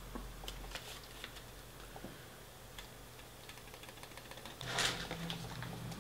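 Takeaway food containers and lids being handled: scattered light clicks and ticks, with a louder rustle about five seconds in.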